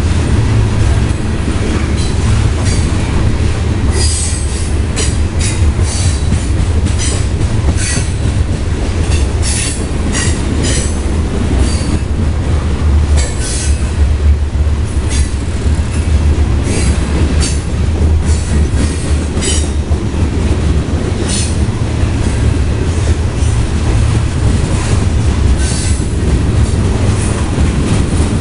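Covered hopper cars of a freight train rolling steadily past close by: a continuous low rumble of steel wheels on rail. Brief high squeals and clanks from the wheels and cars come at uneven intervals throughout.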